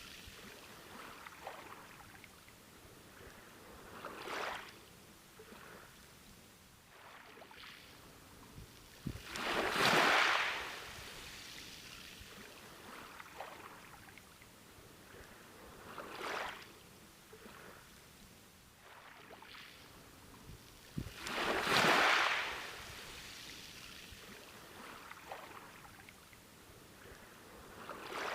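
Ocean waves breaking on a beach, each one swelling up and washing back about every six seconds, the two biggest breaks about ten and twenty-two seconds in. Between the breaks, a soft wash and fizz of receding water.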